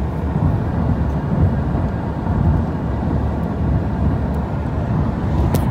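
Steady low rumble of road and wind noise inside a moving car at highway speed.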